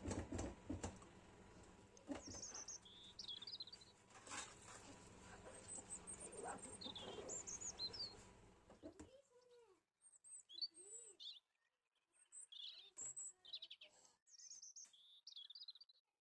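Faint birds chirping: short high calls repeated throughout. There are a few soft clinks in the first half, when dishes are being scrubbed in a steel sink.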